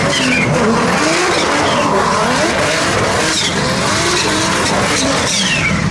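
Turbocharged BMW M54B30 straight-six in an E92 drifting: the engine revs rise and fall again and again as the throttle is worked, over screeching tyres and a high turbo whistle.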